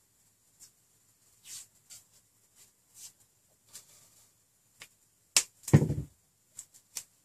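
Light clicks and rustles of a roll of Kapton tape and small parts being handled on a workbench, with one louder knock against the bench about five and a half seconds in.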